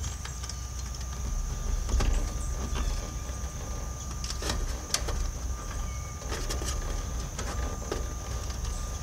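Scattered metal clicks and knocks of hand tools as a new capacitor's mounting strap is tightened down snug inside an AC condenser unit, over a low steady rumble and a faint high steady tone.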